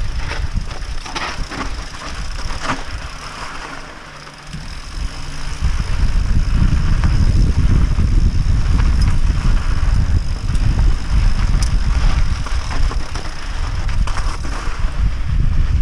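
Mountain bike rolling down dry dirt singletrack: wind rumbling on the microphone, tyres crunching over loose gravel, and the bike rattling, with a few sharp clicks in the first few seconds. The rumble eases around four seconds in, then comes back strongly as speed picks up.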